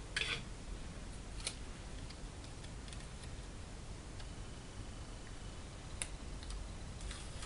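Quiet handling noise: a short crinkle just after the start and a few isolated soft clicks over steady low hiss, as fingers press and smooth a strip of clear tape at the corner of the eye.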